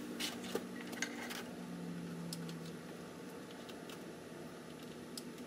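Faint scattered clicks and scrapes of hands working the IDE ribbon cable and power connector onto the optical drive inside a Mac Pro case, over a steady low hum.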